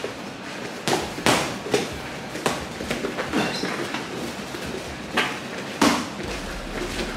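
Boxing gloves smacking as punches land in a sparring exchange: about seven sharp thuds, unevenly spaced, the loudest near six seconds in.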